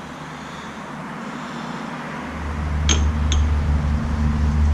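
Two light metallic clinks of brake parts being handled, about three seconds in. A low, steady machine hum starts about two seconds in and keeps running.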